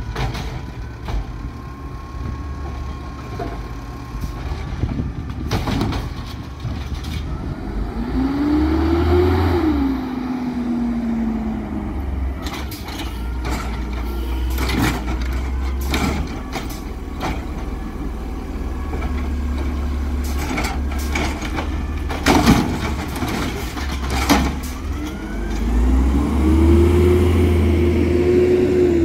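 Peterbilt 320 natural-gas garbage truck with a Bridgeport Ranger automated side-loader body working at the curb. The engine revs up and falls back twice, about eight seconds in and again near the end. Between the two revs come a string of sharp knocks and bangs as the automated arm handles the carts.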